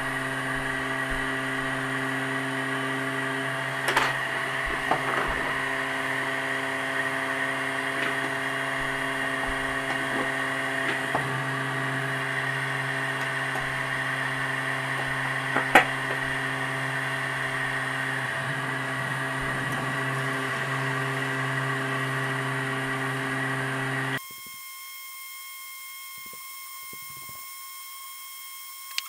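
Electric heat gun running steadily, its fan motor humming under a blowing hiss as it heats a steel control rod end for soldering, with a few light clicks. About three-quarters of the way through, the sound drops suddenly to a much quieter hiss.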